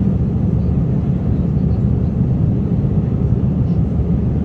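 Jet airliner's engines and airflow heard from inside the passenger cabin during the climb after takeoff: an even, steady low rumble.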